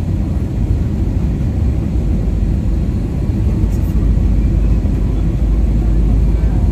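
Cabin noise inside an Airbus A320-family jet airliner descending low on approach to landing: a steady, deep rumble of the engines and rushing air.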